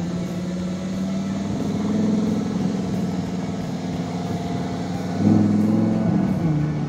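Lamborghini Huracán Spyder's V10 engine running as the car rolls slowly past at low speed, growing louder about five seconds in.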